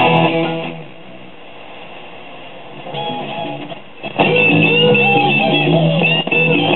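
FM radio broadcast from a 1965 Magnavox Astro-Sonic solid-state console stereo as its dial is tuned. Guitar music drops away under a second in, leaving a low hiss with faint music between stations, and another station with guitar music comes in loud about four seconds in.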